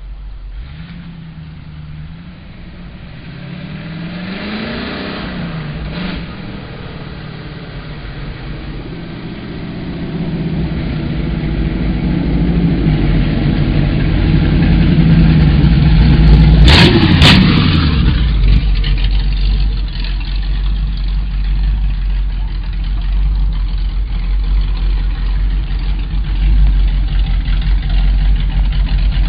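1932 Ford roadster pickup's engine running, with a couple of revs that rise and fall a few seconds in. It grows louder to a peak about two-thirds of the way through, where two sharp cracks stand out, then runs steadily.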